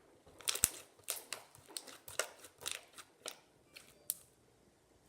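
Slime being stretched and squeezed by hand, giving off a run of sharp, crackly clicks and pops, two or three a second, dying away after about four seconds.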